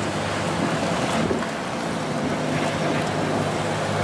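Wind rushing across the microphone over the low, steady running of a Ferrari LaFerrari's V12 engine as the car rolls slowly away.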